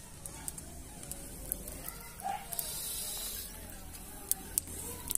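Scattered sharp clicks and clinks of cooking and eating at an open wood fire, with a brief hiss about two and a half seconds in and faint voices in the background.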